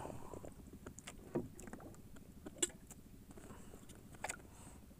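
A few faint, sharp clicks and knocks aboard a small fishing boat, over low background noise; the loudest is about halfway through.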